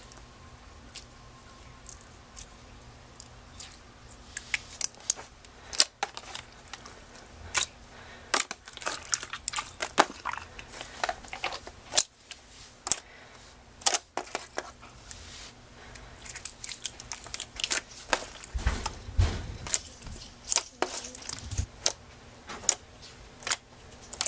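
Hands playing with slime: irregular sticky clicks, crackles and small pops as it is pressed and stretched, with a couple of soft low thumps.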